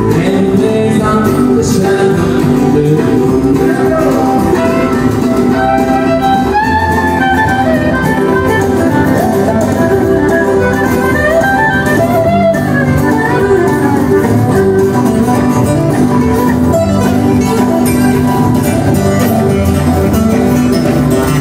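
Live country-western music: acoustic guitars strumming under a fiddle playing a wavering melody line.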